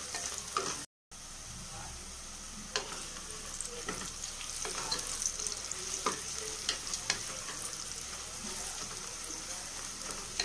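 Sliced onions and green chillies sizzling in oil in an aluminium pressure cooker as they are sautéed toward brown, stirred with a wooden spatula that scrapes and taps against the pot now and then. There is a brief gap of silence about a second in.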